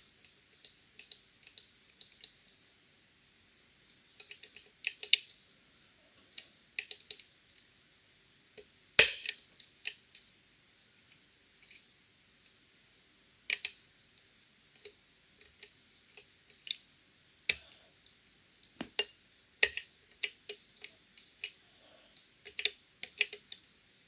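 Irregular sharp metallic clicks and ticks from lock picks and a tension tool working the spring-loaded levers of a five-lever Fichet cabinet lock, the loudest about nine seconds in.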